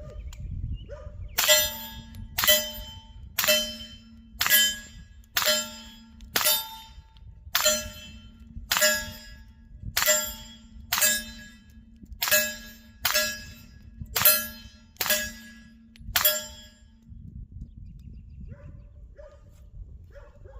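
Henry Homesteader 9mm carbine with a Gemtech suppressor firing 147-grain subsonic rounds: about fifteen suppressed shots at a steady pace of roughly one a second, each with a short metallic ring. The even string with no pause shows the carbine cycling the ammunition without a stoppage; the shots are very quiet.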